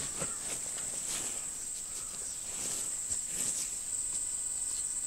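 Insects trilling steadily in one unbroken high pitch. Over it come soft rustles and light scrapes as hands smooth a wet banana leaf and a steel spoon serves rice onto it.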